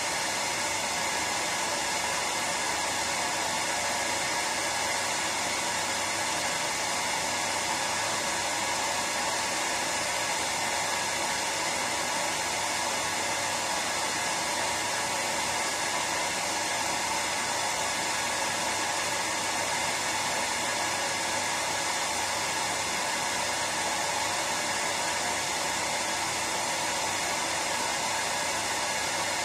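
Hair dryer running steadily: an even, unchanging rush of blown air with a faint motor hum, played continuously as white noise to lull a baby to sleep.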